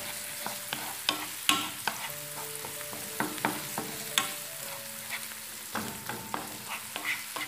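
Chopped onions and spices sizzling in oil in a nonstick frying pan. A wooden spoon stirs them, with irregular scrapes and taps against the pan.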